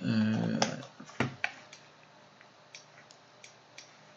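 Scattered clicks of a computer mouse and keyboard: a few louder ones in the first second and a half, then fainter clicks about three a second.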